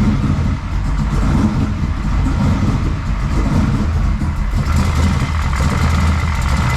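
Turbocharged Ford Mustang engine idling steadily, its driver's side header just resealed with copper RTV instead of a gasket, with no exhaust-leak ticking. The sound turns sharper about two-thirds of the way in.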